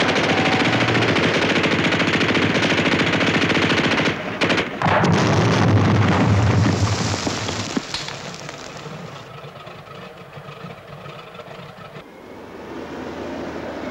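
Rapid machine-gun fire, sustained and loud. About five seconds in, an explosion sets off a heavy low rumble that dies away over a few seconds. Near the end a tank's engine and tracks grow louder as it approaches.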